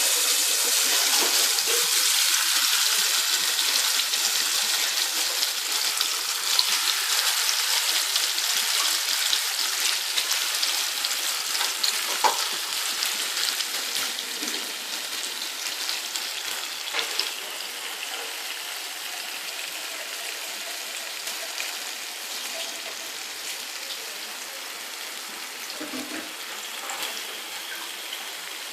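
Chilli-marinated fish shallow-frying in a little oil in a flat frying pan: a steady sizzle with scattered pops and crackles. It is loud at first and dies down gradually as the heat is turned lower.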